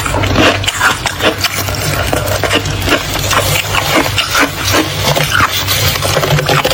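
Close-miked crunching of thick freezer frost being chewed: dense, irregular crisp crackles throughout, over a steady low hum.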